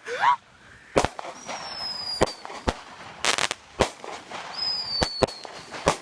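Rainbow Gala consumer firework cake firing its finale shots: a string of sharp bangs at uneven spacing with crackling between them, and twice a high whistle that falls slightly in pitch as a whistling shell climbs.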